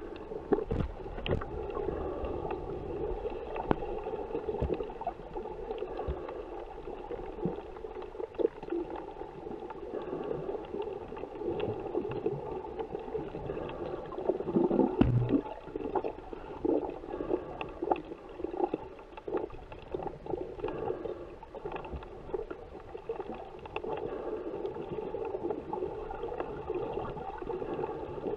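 Muffled underwater ambience picked up by a submerged camera: a steady low hum with scattered clicks and knocks throughout, and a louder knock about fifteen seconds in.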